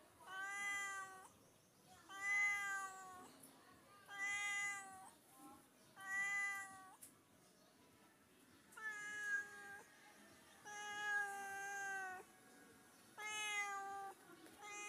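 Domestic cat meowing over and over: about seven drawn-out meows of roughly a second each, coming about every two seconds.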